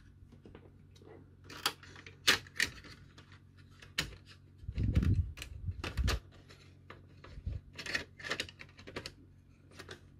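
A circuit board and its cables being handled and fitted back into a Blu-ray player's metal chassis: irregular sharp clicks and taps, with duller thumps about halfway through.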